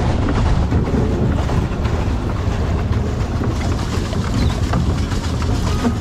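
Pedal boat under way: a steady low rumbling noise of its paddle wheel churning the water.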